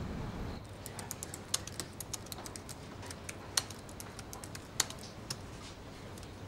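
Fingers typing on a MacBook Air laptop keyboard: quick, irregular key clicks with a few harder keystrokes. They start about half a second in, after a brief low steady rumble.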